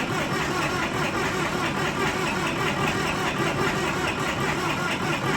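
Case 770 tractor's diesel engine running steadily on one of its first runs after an engine rebuild.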